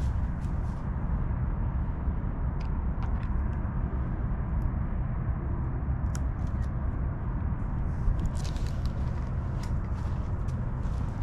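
Steady low rumble of outdoor background noise, with a few faint clicks scattered through it.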